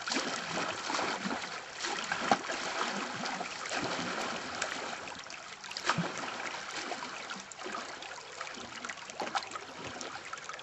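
Running river water with scattered sharp splashes, typical of whitewater around a kayak.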